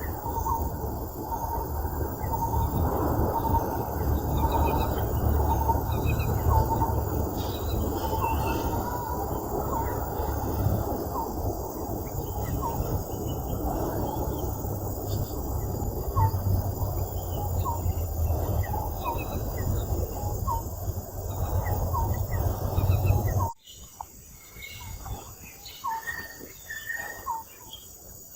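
Outdoor ambience of birds chirping, with a short upward call repeating about once a second over a steady low noise. Near the end the low noise cuts off suddenly, leaving quieter chirping.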